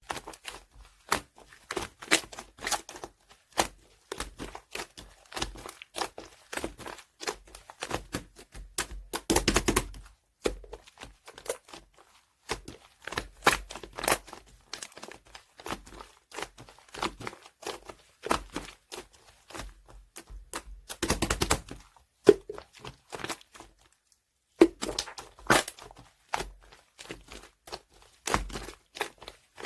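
Slime being squished and stretched by hand, making irregular sticky clicks and pops, with denser runs of crackling about nine and twenty-one seconds in.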